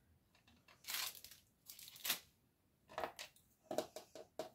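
Small paper cutouts rustling as they are sorted by hand, in short bursts, with a few light clicks and taps near the end.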